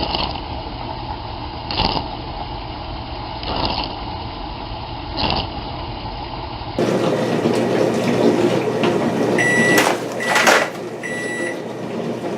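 Dishwasher running a wash cycle: water spraying, with a whoosh about every 1.7 seconds. Then, about ten seconds in, three short high electronic beeps with a couple of sharp knocks among them.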